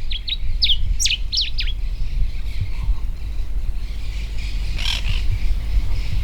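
Common diuca-finch singing: a short phrase of quick, sharply falling whistled notes in the first two seconds, over a steady low rumble.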